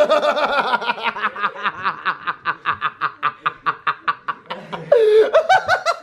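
A child laughing in a long giggling fit: a quick, even run of ha-ha pulses, about six a second, getting louder about five seconds in.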